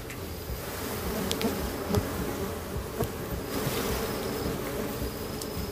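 Swarm of dwarf honeybees buzzing steadily and densely around their exposed single comb as it is handled, with many bees in the air.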